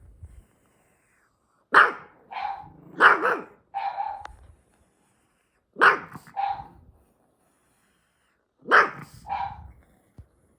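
A small dog barking in short bursts, four times with pauses between, each bark answered by a talking mimic toy that plays the sound back.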